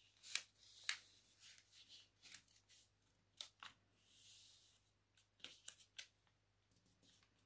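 Paper being folded and creased by hand: faint rustling and sharp little snaps of the sheet, the two loudest near the start about half a second apart, with a soft sliding rustle in the middle.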